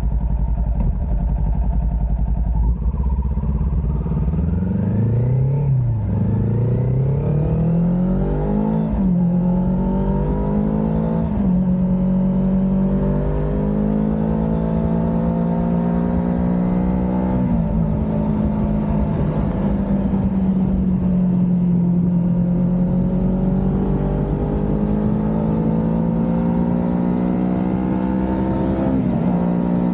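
Kawasaki Ninja 400's parallel-twin engine idling, then pulling away and accelerating through the gears. The note rises and drops at each upshift several times, then holds a steadier pitch with gentle rises and dips, with another brief dip near the end.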